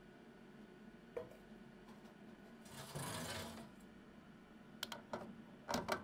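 Espresso machine portafilter being fitted and twisted into the group head: a few sharp metallic clicks and clunks near the end, the loudest near the close. A brief hiss about halfway through, over a faint steady hum.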